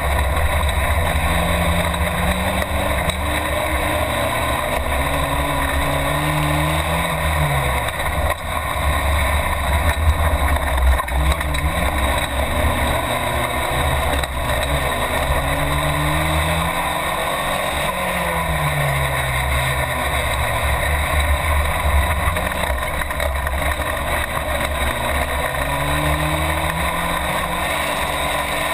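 Race car's engine heard from inside the cabin, revving up and dropping back in pitch every few seconds as the car accelerates, shifts and brakes, over a constant heavy low rumble.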